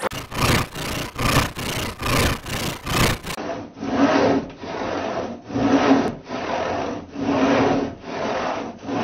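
Hand saw cutting wood, with quick back-and-forth strokes about three a second. About three seconds in it switches to the same sawing slowed to half speed: slower, lower-pitched strokes at about half the rate.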